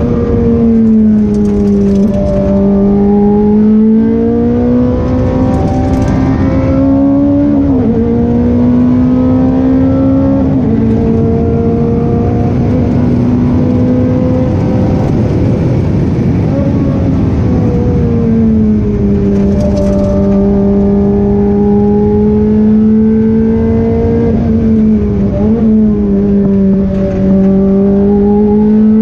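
Ferrari F430 Challenge's V8 engine heard from inside the cockpit at track speed, its note rising and falling through the corners with two quick drops in pitch as it shifts up, over steady road and wind noise.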